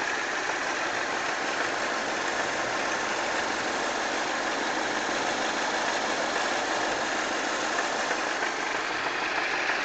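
2004 Pontiac Sunfire's Ecotec 2.2 L four-cylinder engine running steadily at idle, with the noise it makes when it is a little hot.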